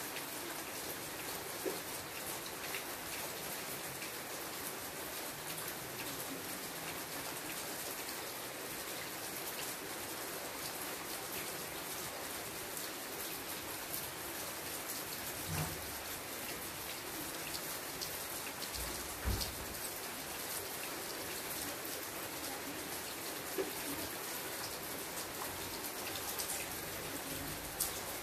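Steady rain falling on leafy foliage: an even hiss with scattered close drop ticks, and a couple of soft low thumps in the middle.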